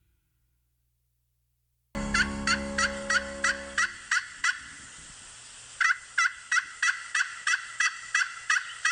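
A domestic fowl calling in a series of short, evenly spaced notes, about three a second. The calls start abruptly after about two seconds of silence and break off briefly midway.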